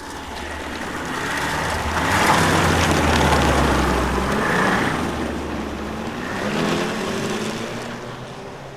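Ski-Doo snowmobile engine driving by. It grows louder to a peak about two to four seconds in, eases off, swells again near seven seconds, then fades away.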